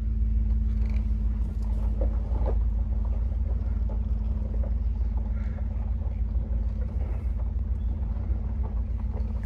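A vehicle engine running steadily, a constant low hum with no change in speed.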